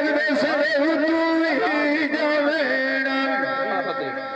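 A male singer singing a Saraiki dhola folk song, holding long high notes with wavering, ornamented pitch.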